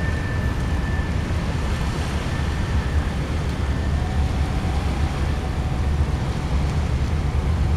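Wind buffeting the camera's microphone, a steady low rumble, with a faint thin whine over it for the first two seconds.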